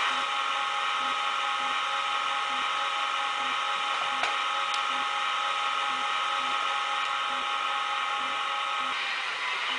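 ESU LokSound decoder in a model locomotive playing the running sound of an LE 6650 electric locomotive with IGBT traction controls, through the model's small speaker: a steady whine of several tones over blower-like noise, with a faint regular ticking. One of the whining tones stops near the end.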